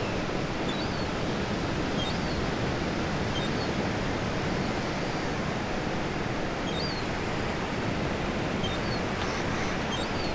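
Ocean waves washing steadily on a shore, with faint short high bird calls every second or two.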